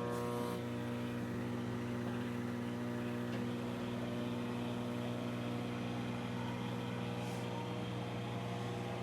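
BLACK+DECKER EM720CB7 microwave oven running, a steady electrical hum.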